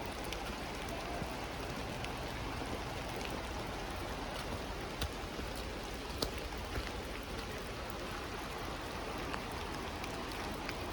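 Steady rain falling, with a few sharp ticks about five and six seconds in.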